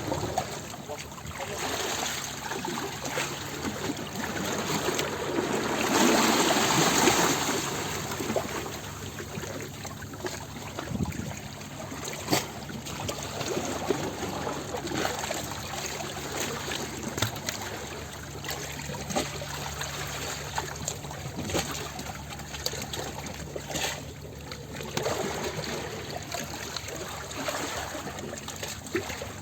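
Ocean waves washing and lapping against the shore. One louder wave swells up about six seconds in, and a smaller one comes near the end.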